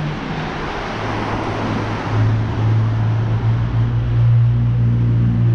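Street traffic: a vehicle goes by with tyre and road noise that swells and fades over the first two seconds, then a steady low engine hum from about two seconds in.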